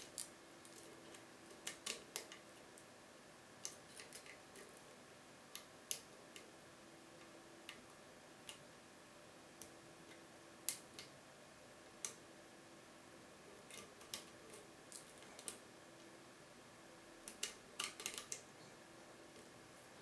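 Small, sharp metal clicks of a lock pick and tension wrench working the wafers inside a Bricard Supersureté lock cylinder. The clicks come irregularly, a few bunched together near the start and again near the end.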